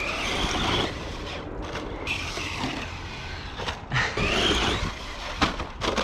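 Electric motor of a Traxxas Slash RC car whining as it revs up and down, a higher rise-and-fall about four seconds in, over a steady low rumble.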